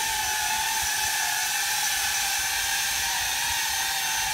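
Skydio R1 drone flying low, its propellers giving a steady whine over a hiss.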